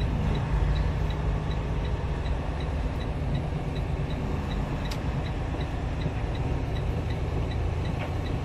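Inside a semi-truck cab: a steady low engine and road rumble as the truck crawls through snow, with a faint regular tick about three times a second and a single sharp click about halfway through.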